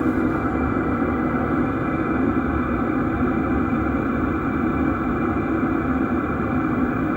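HCALORY diesel air heater running steadily at maximum fan speed and fuel flow.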